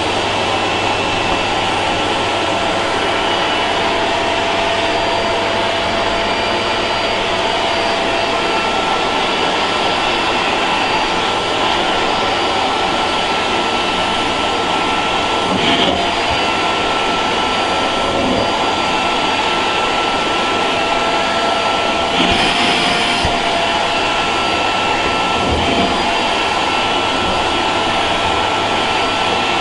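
Vacuum cleaner motor running steadily with a high whine over its rushing air noise. It briefly turns louder and hissier twice, about halfway through and again about three-quarters through.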